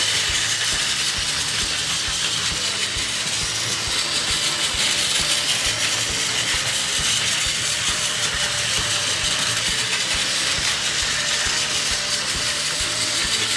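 Two battery-powered Plarail toy bullet trains (500 TYPE EVA) running on plastic track at the low speed setting: a steady motor whir with rapid, continuous clicking and rattling of the wheels over the track.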